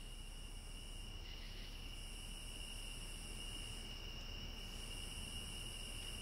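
Faint insect chorus: a steady high-pitched trill, with a still higher layer that breaks off twice for under a second and comes back. A faint low hum runs underneath.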